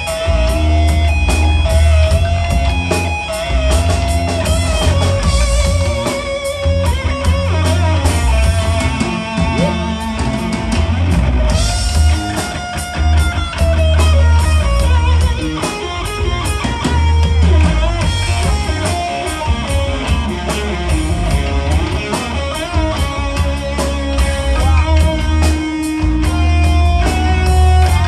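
Live rock band playing an instrumental: a lead electric guitar holds long, bending notes over a heavy bass line and drums.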